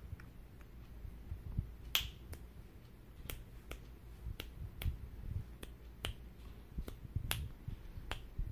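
Fingers snapping over and over, sharp dry clicks about two a second, starting about two seconds in.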